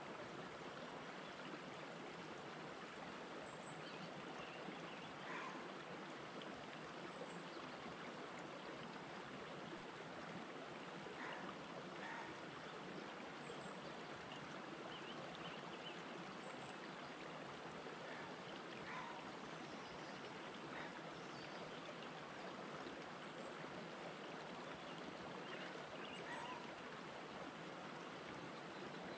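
Shallow rocky stream running over stones: a gentle, steady rush of water that does not change.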